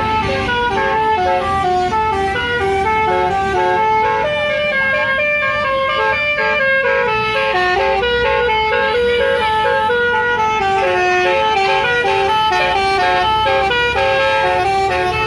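Bus telolet horn, a set of multi-note air horns, playing a quick melody of stepped notes without a break, over the low rumble of the bus.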